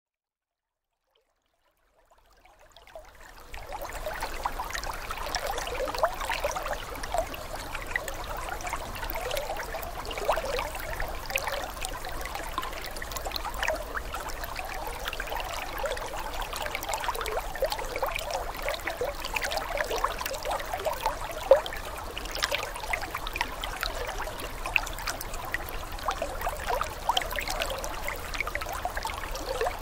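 Aquarium water trickling and splashing at the surface, a steady stream of small splashy crackles that fades in after about two seconds of silence.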